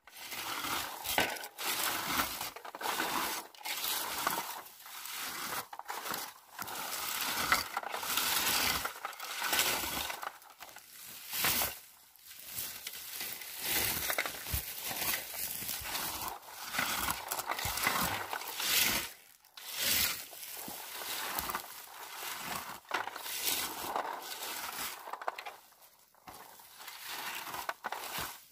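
Plastic berry picker raked again and again through blueberry bushes, the leaves and twigs rustling and scraping with each stroke in an uneven run.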